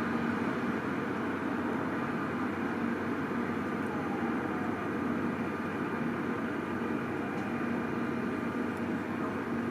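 Steady background hiss with a faint low hum: room tone while the alarm has not yet gone off.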